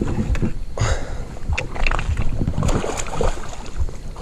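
Close handling noise: irregular rustling, knocks and clicks as a fishing rod and its conventional reel are held and cranked right by the microphone.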